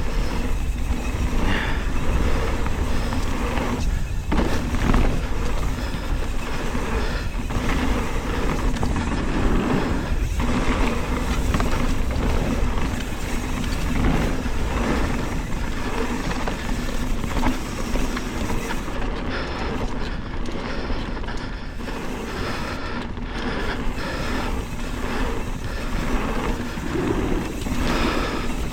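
Wind rushing over the microphone and tyres rolling over a dirt trail as a Chromag Doctahawk hardtail mountain bike descends, with knocks and rattles from bumps every few seconds.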